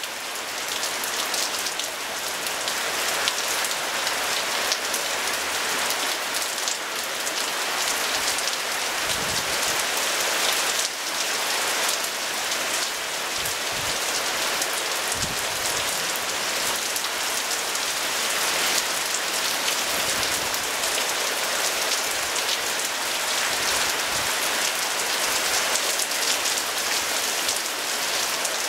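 Steady rain pouring down, an even hiss of drops hitting the ground, leaves and wet paving.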